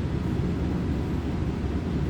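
Diesel railcar heard from inside the passenger car: a steady low rumble with no sudden events.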